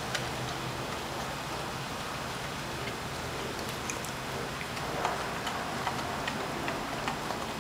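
Rottweiler chewing and crunching a raw mackerel: irregular sharp clicks, sparse at first and more frequent from about three seconds in, over a steady background noise.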